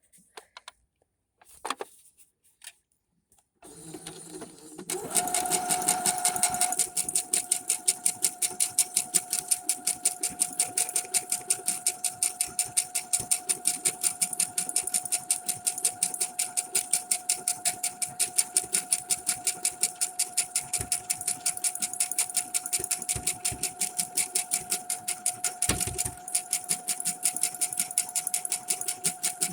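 Brother SQ9185 computerized sewing machine stitching monogram lettering: after a few quiet seconds with small clicks, the motor starts about four seconds in and runs at a steady speed, the needle striking in rapid, even strokes over a steady whine.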